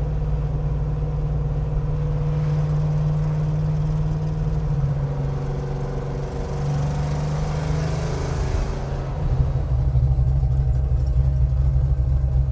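1970 Pontiac GTO Judge's V8 engine running as the car drives, its pitch shifting up and down with speed. It grows louder and deeper about ten seconds in.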